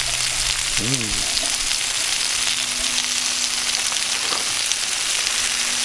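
Seasoned chicken wings sizzling and crackling steadily on the grate of a Cadac Carri Chef 2 gas grill over a low flame.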